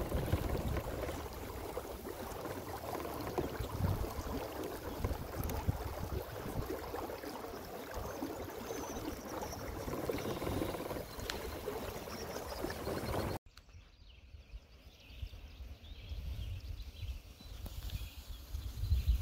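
Water washing along a small kayak's hull with wind on the microphone as the boat moves under an electric trolling motor. About two-thirds through it cuts suddenly to much quieter lapping water.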